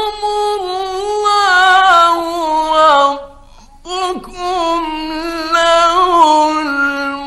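A male Quran reciter chanting in the melodic mujawwad style, holding long ornamented notes in two phrases with a short breath about three seconds in.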